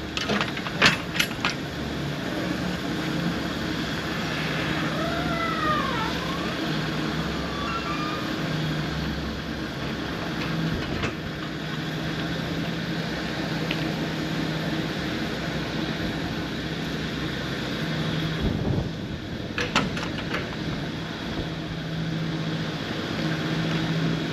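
Semi truck's diesel engine running steadily as the truck moves slowly, with a brief squeal about five seconds in and a few knocks and rattles near the start and again about twenty seconds in.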